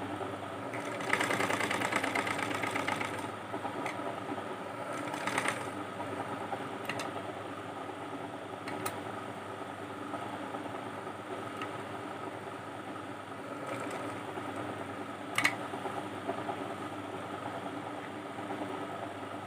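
Sewing machine running steadily, stitching a line along a joined seam through cotton dress fabric. It is louder for a couple of seconds about a second in, and a few sharp clicks come through later.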